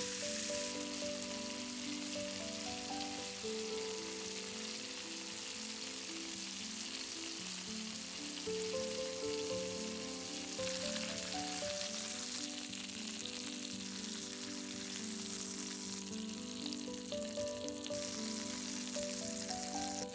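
Chicken drumsticks sizzling in olive oil and butter in a cast-iron skillet, a steady frying hiss, with gentle background music playing over it.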